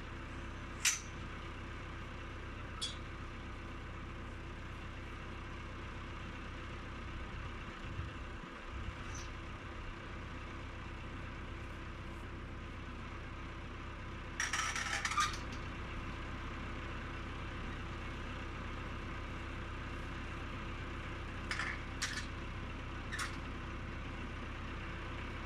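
Tractor engine idling steadily while the galvanized steel booms of a mounted boom sprayer are folded by hand, giving a few sharp metal clanks and, about halfway through, a rattling metal clatter lasting about a second.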